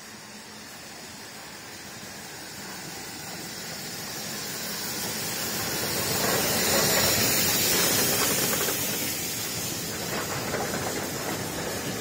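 Steam tank locomotive arriving and passing close by. Its steam hiss grows louder to a peak as the engine goes past, about seven seconds in, then eases as the coaches roll by.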